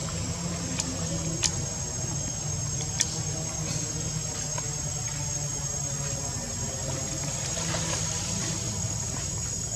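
Insects droning steadily at a high pitch in the forest, with a few sharp clicks about one and a half and three seconds in.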